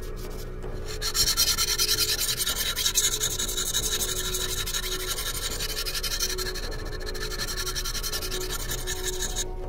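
A diamond sharpening stone on a guided clamp sharpener is scraping along a steel knife edge in quick, even back-and-forth strokes. The stroking starts about a second in and fades somewhat toward the end.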